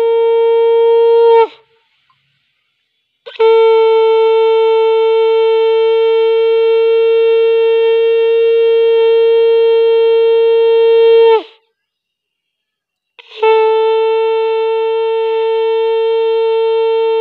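Conch shell (shankha) blown in long, steady blasts. One blast ends about a second and a half in, a second lasts about eight seconds, and a third starts about three-quarters of the way through. Each blast drops in pitch as it cuts off.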